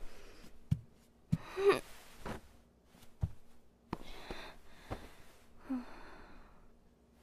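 A young woman crying: short shaky sobs and gasping breaths, with a few soft low thumps in the first three seconds.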